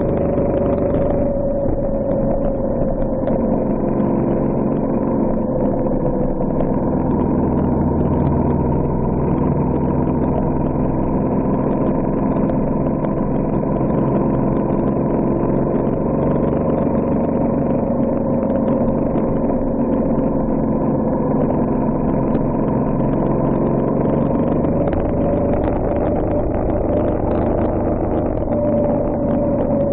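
Engine of a vehicle driving at a steady pace, its pitch drifting gently up and down, over a steady rumble of tyres on a gravel road.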